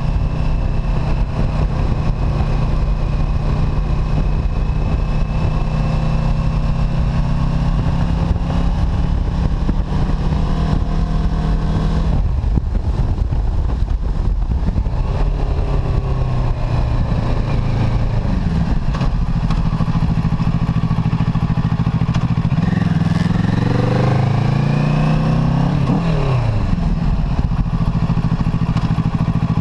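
Kawasaki Ninja 650's parallel-twin engine running as the bike rides along, heard close from a tank-mounted camera with wind rush. The engine note drops about twelve seconds in, and near the end the revs rise and fall several times.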